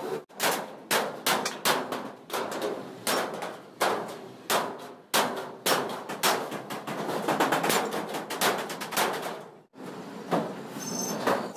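Hammer blows on sheet steel, struck over and over at an uneven pace of about one to two a second, each blow ringing briefly.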